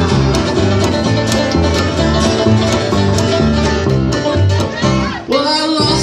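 Live acoustic string band playing an instrumental break: rapid banjo picking over strummed acoustic guitar and a plucked upright bass line, with a brief drop about five seconds in before the music picks up again.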